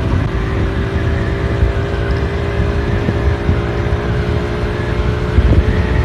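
Wind rushing over the microphone of a Yamaha VOX 50cc scooter riding at a steady speed, with the scooter's small engine running at an even pitch beneath it.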